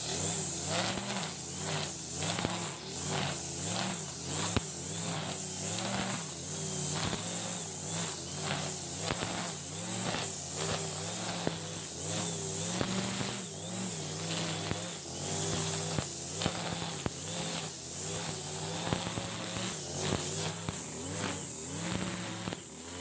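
Petrol brush cutter engine running at working speed, its note wavering, with a swish about twice a second as the cutting head is swung back and forth through grass.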